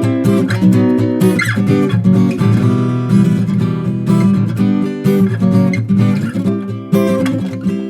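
Acoustic guitar strumming chords in an instrumental passage between the sung verses of a song.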